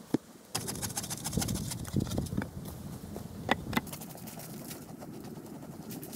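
Hands scraping and scooping dry soil and dead leaves out of a dug earthen hollow: a crackling rustle with scattered sharp clicks and a few louder knocks. A single sharp knock comes just before the scraping starts.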